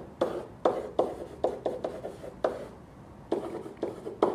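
A pen writing on an interactive whiteboard: an irregular series of sharp taps and short scrapes as each stroke of the letters is made, each tap with a brief ring, with a short pause after about two and a half seconds.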